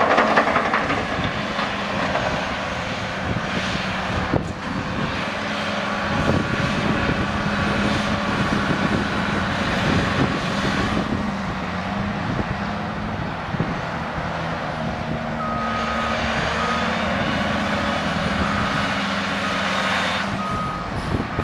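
John Deere 450C LC excavator's diesel engine working steadily under hydraulic load as it dumps and digs, with a bucket of dirt pouring into a dump truck bed at the start. About three-quarters of the way through, a reversing alarm starts beeping repeatedly.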